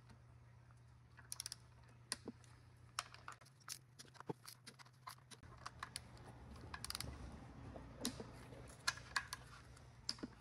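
Click-type torque wrench clicking as bolts on a Subaru 5EAT automatic transmission case are tightened to 30 ft-lb: quiet, sharp, irregular clicks, some in quick clusters.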